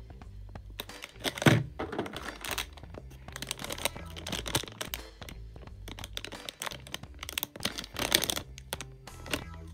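Plastic Hot Wheels Mystery Models blind bag crinkling in bursts as it is turned over and pressed between the fingers, loudest about a second and a half in and again near the end, over background music.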